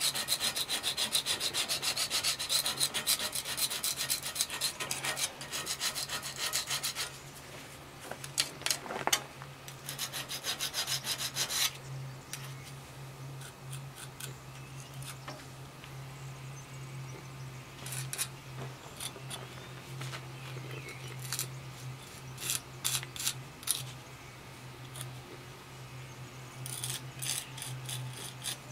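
A hand scraper blade scraping setting chemical residue off a stone face, in fast continuous strokes for the first seven seconds or so, then in short scattered bursts. The residue is cleared so the two stone faces meet flush.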